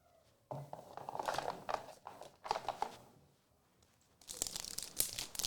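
Trading card pack wrapper being torn open and crinkled by hand, in irregular crackly stretches with a short pause in the middle.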